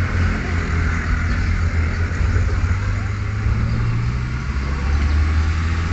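A vehicle engine running steadily, mostly low-pitched, with an even hiss above it.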